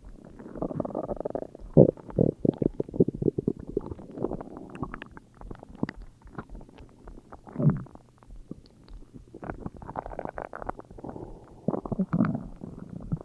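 A person's stomach growling and gurgling in irregular bubbly rumbles, with a rapid run of gurgling pops about two seconds in, a short falling growl near the middle and another growl near the end.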